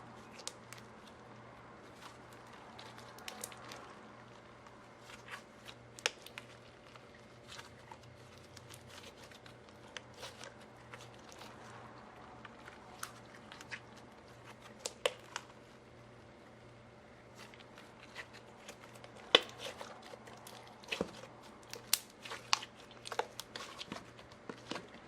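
Slime being kneaded and stretched by hand, giving off irregular sticky clicks and small air-pocket pops, which come thicker and louder near the end.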